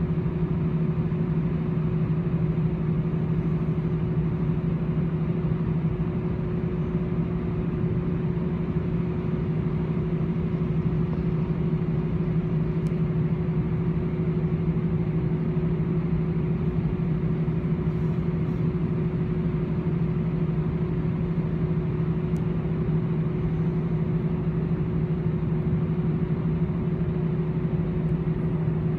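Cabin noise of an Airbus A318-111 taxiing on its CFM56 engines at idle: a steady hum with a strong low drone and a fainter, higher tone held over it.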